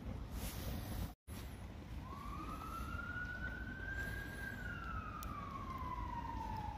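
An emergency-vehicle siren wailing faintly: a slow rise in pitch starting about two seconds in, then a long fall, and it begins to rise again at the end. It sounds over a steady low rumbling noise.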